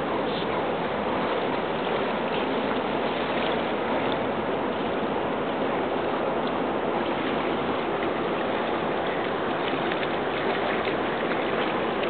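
Steady rushing noise of river water washing on a sandy shore, with a few faint splashes from a dog wading and pawing in the shallows.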